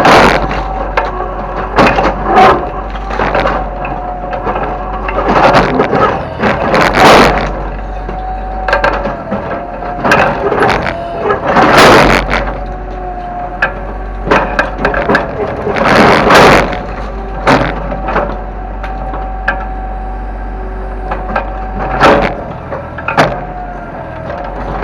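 Kobelco excavator working: its diesel engine runs steadily under a wavering hydraulic whine, while loud crashes and cracking of breaking debris come every few seconds, the biggest around 6, 12, 16 and 22 seconds in.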